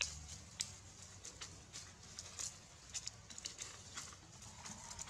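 Dry fallen leaves crackling and rustling in short, irregular crackles under two young macaques wrestling and rolling on leaf-strewn ground.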